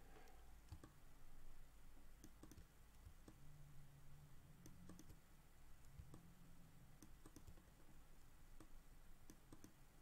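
Near silence with faint, scattered clicks from a computer mouse being used to drag control points on screen.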